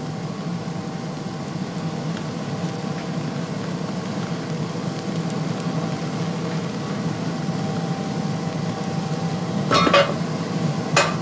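Steady rushing noise and low hum from a gold-smelting furnace as molten gold pours from a crucible, with two short metallic clinks near the end.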